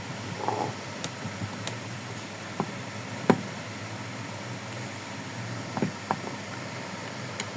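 A handful of sharp clicks and knocks at irregular intervals, the loudest about three seconds in, over a steady low hum and hiss.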